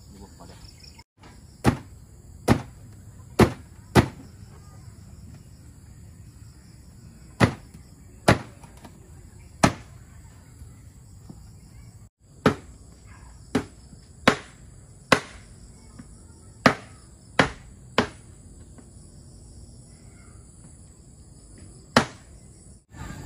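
A meat cleaver chopping a palm civet carcass on a cutting board: about fifteen sharp single chops at uneven intervals. A steady high chirring of insects runs underneath.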